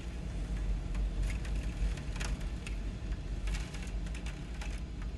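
Hurricane-force wind buffeting the microphone as a steady low rumble, with scattered sharp clicks over it.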